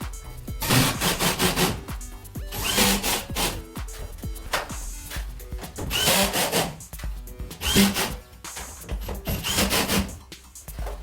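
Installation tool work: a series of harsh scraping or sawing strokes, each under a second long and irregularly spaced, over faint background music.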